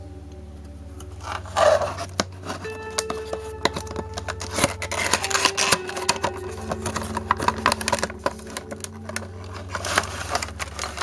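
Many small clicks and scrapes from handling an action figure and its plastic and cardboard packaging, over quiet background music and a steady low hum.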